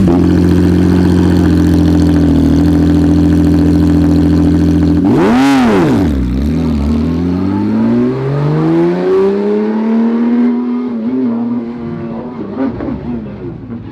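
GT3 race car engines at full cry: a loud, steady high-revving note, a sharp rise and fall in pitch about five seconds in, then the engine note climbing as a car accelerates.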